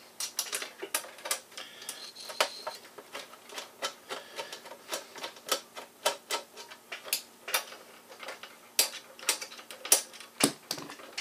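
Small screwdriver working a screw in the chrome-plated steel housing of a 1936 General Electric model 600 toaster: a run of irregular metallic clicks and ticks, some sharper than others.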